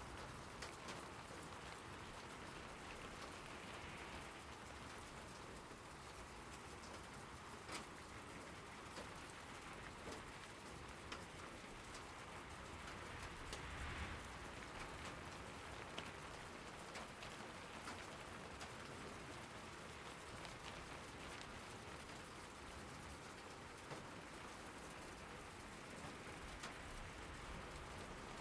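Steady rain falling, an even hiss with many scattered, sharper drop hits.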